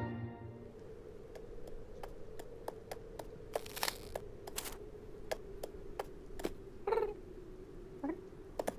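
Cartoon cat sound effects: a scatter of soft ticks as the cat pads along, two short breathy bursts, then a short trilling cat call about seven seconds in and another just after eight. A faint steady hum lies underneath.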